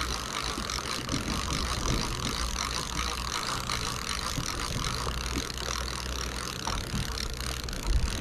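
Steady low drone of a sportfishing boat's engine under a continuous rush of wind and water, with a low thump near the end.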